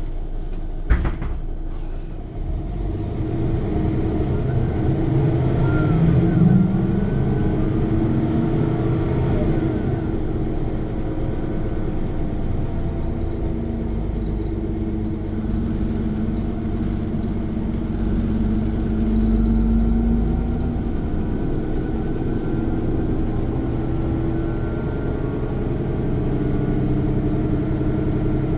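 Inside a 1995 Mercedes-Benz O 405 N1 low-floor city bus: a knock about a second in, then the diesel engine rises in pitch twice as the bus pulls away and accelerates, and settles to a steady run. The engine is the loudest sound, with a faint whine from the rear axle's differential under it.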